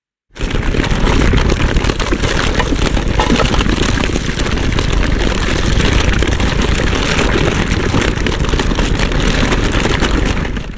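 Destoroyah monster sound effect from the Godzilla films: a dense, crackling, rumbling noise that starts abruptly, holds steady for about ten seconds and then fades out.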